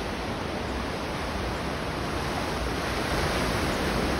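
Ocean surf breaking around rocks and washing up the beach below: a steady rushing wash that swells a little about three seconds in.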